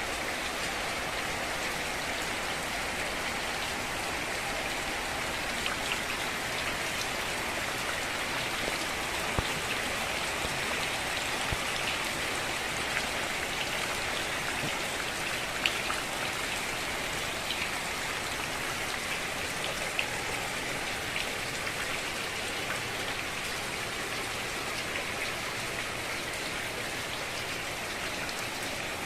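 Heavy rain falling steadily, an even hiss of rain with scattered sharper drop ticks on hard surfaces.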